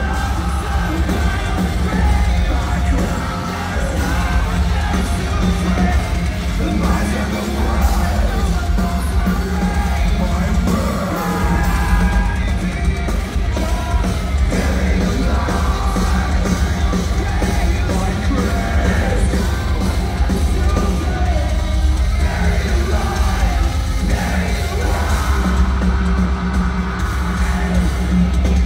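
Metalcore band playing live and loud: distorted guitars, bass and pounding drums under screamed vocals, heard in a large hall from the crowd.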